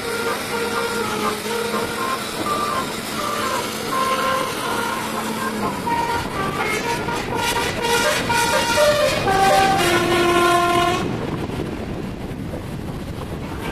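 A bus's Basuri telolet musical horn playing a tune of stepping notes. It grows louder and fuller in the second half, then cuts off suddenly about eleven seconds in. A steady low drone runs under the first half.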